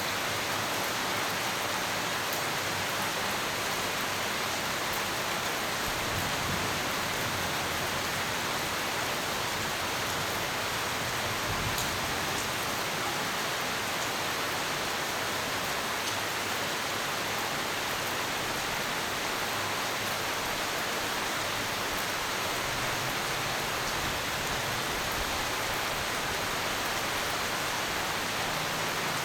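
Steady rain falling, an even hiss without a break, with a few faint low rumbles now and then.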